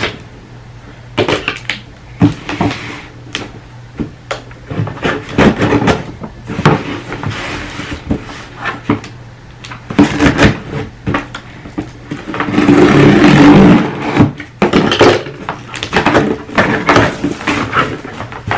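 Cardboard shipping box being handled and cut open with scissors: scattered knocks and scrapes on the cardboard, with a louder rasping stretch of a second or so about two-thirds of the way through.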